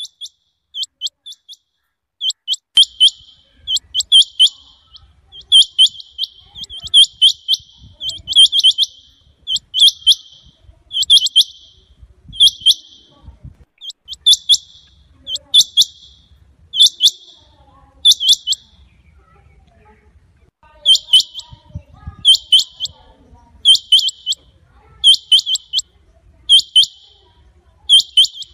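Rain quail calling: loud, high, sharp double notes given in quick clusters, repeated about every second and a half. There is a short pause about two-thirds of the way through.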